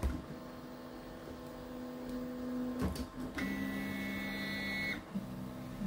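Artillery Sidewinder X2 3D printer's stepper motors driving the print head and bed as it starts auto bed levelling. There is a steady hum, and a click at the start and again about three seconds in. This is followed by a higher, two-tone whine for about a second and a half, and a shorter move near the end.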